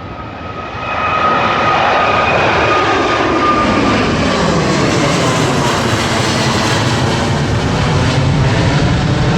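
Airliner's engines powering up for takeoff: the noise swells about a second in to a loud, steady rush. A thin high whine over it fades away within the first few seconds.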